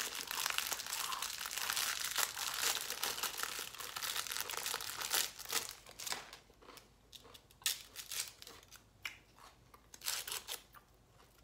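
Cellophane fortune-cookie wrapper crinkling and tearing open for the first six seconds or so, then scattered crisp crackles as the cookie is cracked and the paper fortune pulled out.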